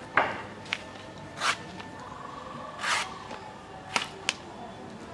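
A machete chopping the husk off a green coconut: about six sharp strikes, the loudest about a quarter second in, two of them drawn out as short slicing cuts.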